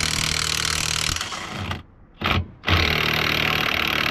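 Cordless DeWalt power driver running under load, driving a bolt into a Can-Am X3's steering knuckle and forcing it to cut its own threads in an unthreaded hole. It runs steadily, stops for about a second near the middle with one short blip, then runs again.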